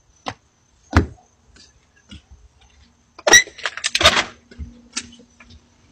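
Sharp knocks and clatter at a wooden front door as a child comes up to it: two single knocks early, then a louder burst of clattering knocks about three seconds in.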